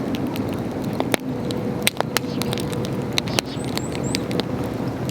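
Wood campfire burning, with sharp irregular crackles and pops over a steady low rumble.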